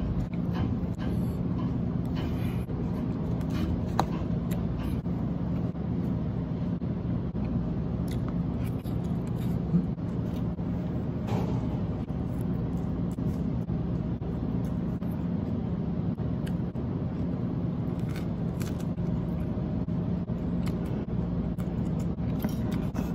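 Steady machine hum of room equipment such as refrigeration or ventilation, with scattered light clicks and crunches from eating: a plastic fork on a foam tray, and chewing of lettuce and vegetables.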